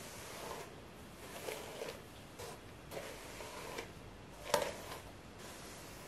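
Wet detangling brush being pulled through long wet hair: a series of soft swishing strokes, one stroke noticeably louder late on.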